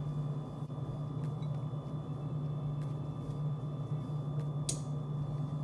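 Steady low hum with a faint high whine above it, and a brief soft rustle about five seconds in.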